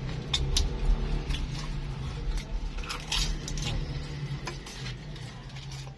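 Close-up chewing of a fried baklor snack: scattered crisp crunches from the fried wrapper mixed with soft, wet squishing from the vermicelli filling, over a low steady hum.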